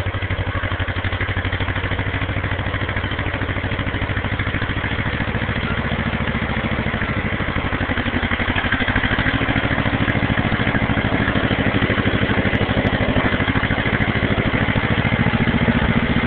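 1953 John Deere 40 crawler dozer's two-cylinder engine running with a rapid, even firing beat as it pushes through brush. It grows louder about halfway through as the machine comes nearer.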